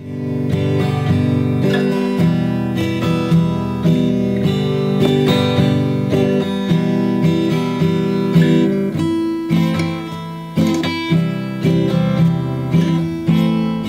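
Acoustic guitar strummed in a steady rhythm of chords, the last chord ringing out near the end.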